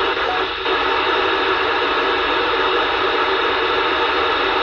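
Steady, loud hiss of static from a PMR446 handheld radio's speaker, with the channel open and no readable station coming through.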